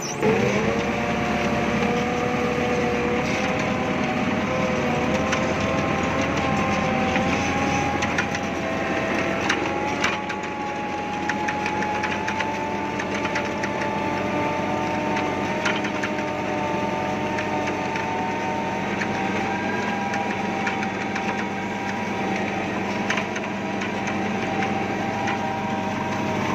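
Tractor engine running steadily under load, pulling a wheat seed drill, with a continuous rattle and a few sharp cracks, at about 10, 16 and 23 seconds in.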